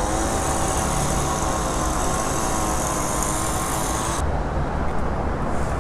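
Steady road traffic noise from a busy road below, with a vehicle engine hum and a high hiss that cuts off suddenly about four seconds in.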